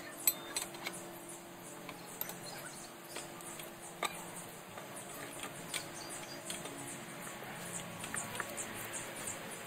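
Faint clicks and scrapes of a 1-inch wood auger bit being fitted into the 3/4-inch chuck of a Black & Decker electric drill and the chuck being tightened by hand, with one sharp click near the start and another about four seconds in; the drill itself is not running.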